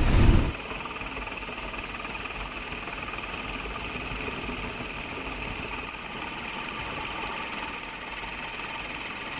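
Helicopter engine and rotor noise, steady throughout, heard from the open cabin door. A brief low thump right at the start.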